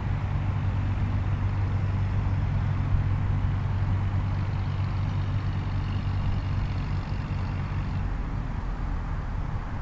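A motor engine running steadily with a low hum over outdoor background noise; the hum dies away about eight seconds in.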